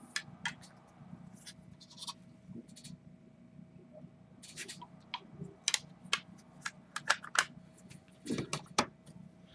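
Hard plastic PSA graded-card slabs clicking and clacking against each other and the table as they are picked up, shuffled and set down: scattered sharp taps, coming in small clusters, with a faint steady hum underneath.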